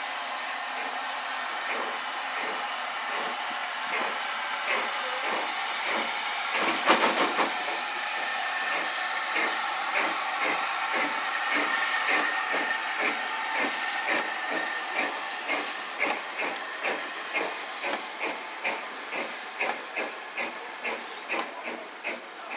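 Small 1907 Cockerill steam tank locomotive pulling its coaches: a steady hiss of steam under regular exhaust chuffs, roughly two a second, with a brief louder burst about seven seconds in. The chuffs grow sharper as it passes, then fade as it draws away.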